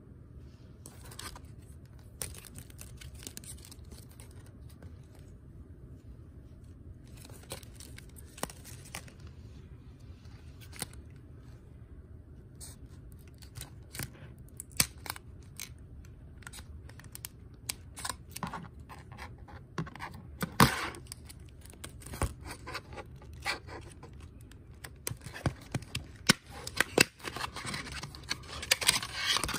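Scissors snipping through the printed plastic wrapper of a toy capsule, in scattered sharp cuts that come thicker as it goes on. Near the end the wrapper crinkles and tears as it is peeled off the plastic balls.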